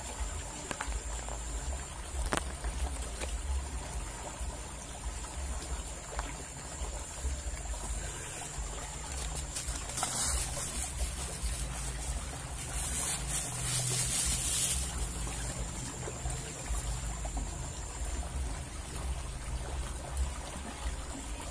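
Water rushing steadily along a narrow concrete drainage ditch, with a low rumble underneath and brief hissy bursts about ten seconds in and again a few seconds later.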